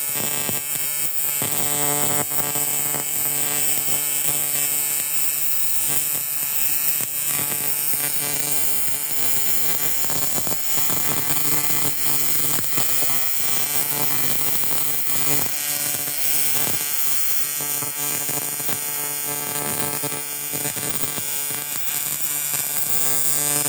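AC TIG welding arc on a cracked cast-aluminium motorcycle fork bottom, a steady electric buzz with a high hiss and scattered short crackles.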